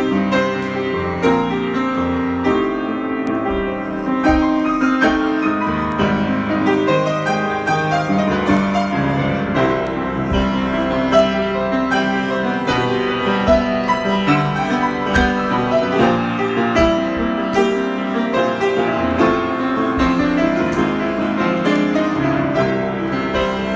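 Piano improvisation: a continuous flow of notes and chords, the notes ringing on into one another.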